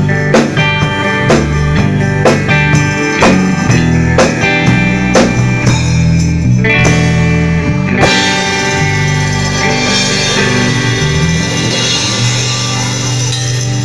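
Rock band with electric guitar, bass and drum kit playing an instrumental passage to a steady beat of about two drum hits a second; about eight seconds in, a cymbal crash comes in and a final chord rings out.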